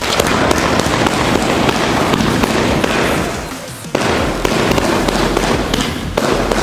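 Röder 'Alpha Centauri' firework compound (a fused multi-shot cake battery) firing: a dense, continuous crackle of launching shots and bursting stars. It breaks off briefly about four seconds in and again about six seconds in, each time resuming with a sharp new volley.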